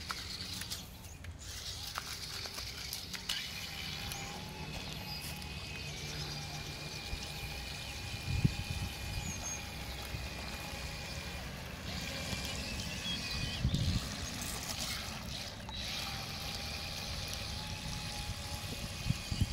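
Small electric motors of a cheap toy RC car whining steadily as it churns through shallow water, with water splashing around it. There are a couple of louder surges partway through.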